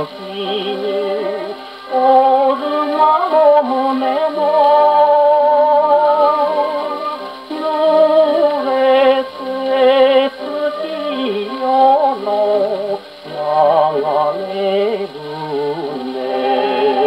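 A 1949 Japanese popular song on a 78 rpm shellac record, playing acoustically through an HMV 102 portable wind-up gramophone: a wavering melody line over accompaniment. The sound has the narrow, treble-less tone of acoustic 78 playback.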